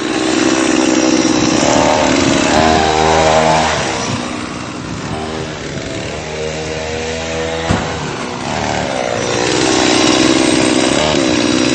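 Two-stroke Stihl chainsaw engine fitted to a bicycle, running and revving, its pitch rising and falling several times. There is a single sharp click about two-thirds of the way through.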